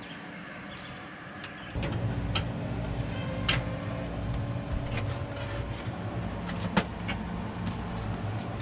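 A steady mechanical hum in the pop-up camper's kitchen, with a few sharp clicks and clinks of a spatula on a frying pan at the stove. The hum and clatter begin suddenly about two seconds in, after a quieter stretch of outdoor ambience.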